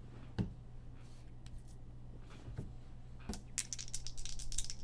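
A pair of dice rattling and tumbling to a stop for about a second near the end, in a quick run of sharp clicks, with a single knock about half a second in. A steady low electrical hum runs underneath.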